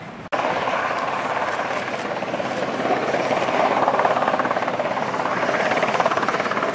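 Westland Sea King HAR.3A search-and-rescue helicopter hovering close by: twin turboshaft engines and main rotor running steadily, with a fast, even blade beat. The sound jumps suddenly louder a moment in.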